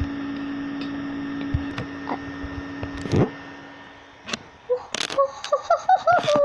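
A steady electrical-sounding hum that stops about three seconds in with a thump, then knocks and clicks of a phone being handled and moved, with a high voice of wavering pitch near the end.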